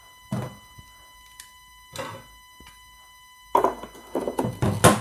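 Clatter and knocks of the 3D stirrer being fitted into the stainless-steel bowl of a Bosch Cookit kitchen machine. Two single knocks come first, then a quick run of clicks and thumps in the last second and a half, loudest at the end.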